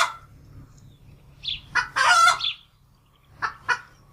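Domestic fowl calling: short notes lead into a longer drawn-out call. The pattern repeats about every two to three seconds.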